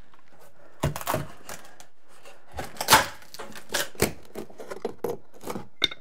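Wooden trim being pried and ripped off paneled wall and ceiling: an irregular run of sharp cracks, snaps and scraping rasps, the loudest about three seconds in.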